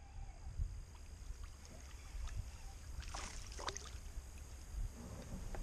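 Quiet sounds of a canoe on still water: a low rumble of wind on the microphone, with light knocks and faint water sounds against the hull. Two short hissing rushes come about three and a half seconds in.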